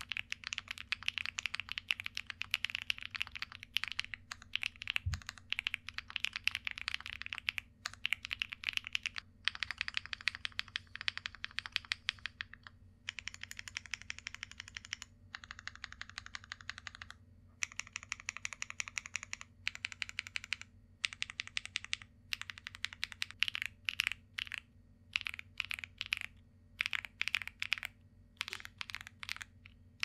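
Typing on a Meletrix Zoom75 SE mechanical keyboard with stock Gateron Quinn tactile switches, a PC plate, plate foam, switch pad and PBT keycaps: deep thocks in quick runs of keystrokes broken by short pauses. The pauses come more often near the end.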